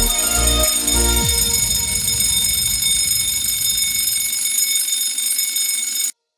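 Zafiro alarm clock's bell ringing continuously in a steady, high, metallic ring, cutting off suddenly near the end.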